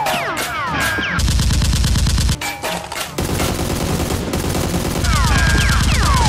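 Rapid automatic gunfire, a gunshot sound effect laid over the Nerf fight rather than the blasters' own sound. It comes in heavy bursts about a second in and again near the end, with falling whistling tones in between.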